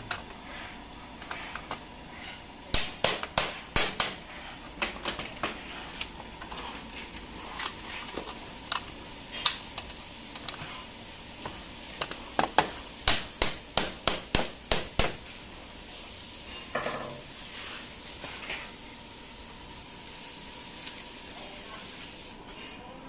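Sharp knocks on the aluminium partition frame as a metal L-connector is seated in the corner post. A quick run of about five knocks comes a few seconds in, then scattered single knocks, then a faster run of about nine at roughly three a second about halfway through.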